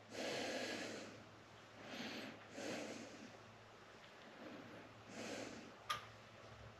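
A person breathing out through the nose in several soft puffs, close to the microphone, with a single sharp click about six seconds in.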